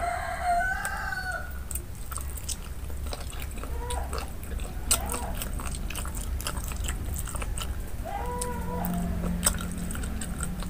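Close-up wet biting, sucking and chewing of spicy chicken feet, a steady run of sharp mouth clicks and smacks. Several short pitched calls, each about a second long, sound over it: one just at the start, one about four seconds in, and one about eight seconds in.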